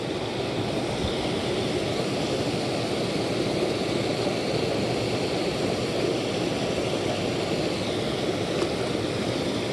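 A small creek running over a riffle: a steady rush of water.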